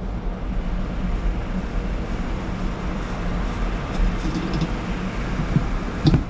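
Steady low hum and rushing noise of machinery on an airport apron, with one short knock about six seconds in.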